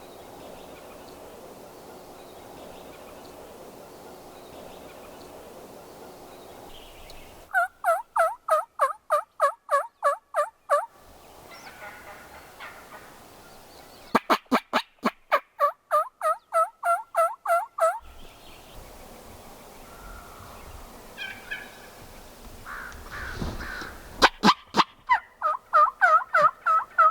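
Turkey yelping: three loud runs of evenly spaced yelps, about four a second, each run lasting three to four seconds. Softer, scattered calls come between the second and third runs.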